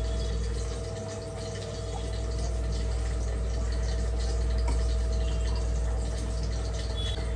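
Steady motor hum with two faint steady tones running underneath, dipping briefly about a second in, with a few faint taps of a knife cutting green chillies on a board.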